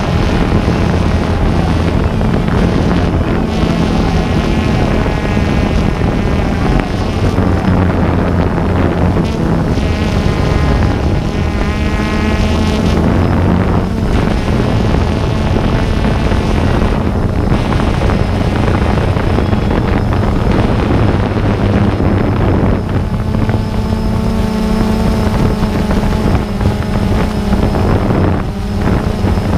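A motor running steadily with a constant low hum, with wind noise on the microphone.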